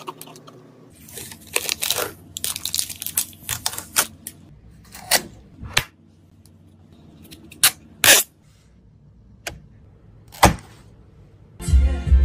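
Unboxing handling of an ASUS ROG Strix graphics card: short rustles and tearing of its plastic packaging film, with scattered sharp clicks and taps as the card and its box are handled. Music with a heavy bass starts near the end.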